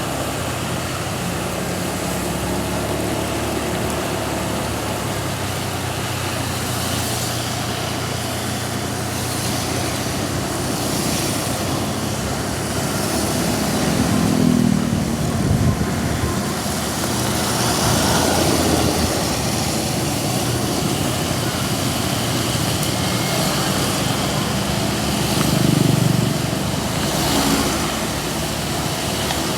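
Road traffic: vehicle engines running, over a steady rushing noise, with louder swells a few times as vehicles pass.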